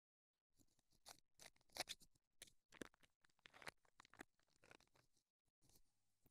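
Shears snipping through an Ortho-Glass fiberglass splint roll: faint, irregular, crisp snips and rustles that start about a second in and stop a little after four seconds.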